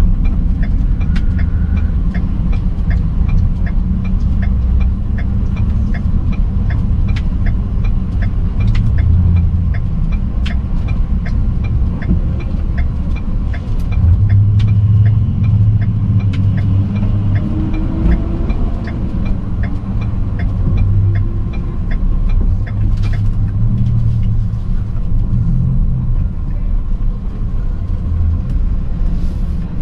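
Steady low rumble of city street traffic, with light ticks about twice a second through the first half.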